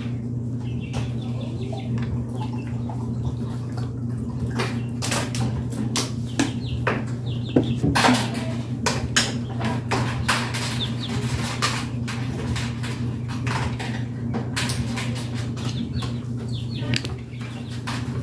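Young chickens in a wire pen clucking and moving about, with wings flapping and scratching and rustling in wood shavings, busiest in the middle. A steady low electrical hum runs underneath.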